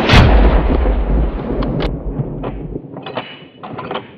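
A single loud gunshot just after the start, followed by a low rolling echo that dies away over about two and a half seconds. Several short sharp clicks and rustles come after it.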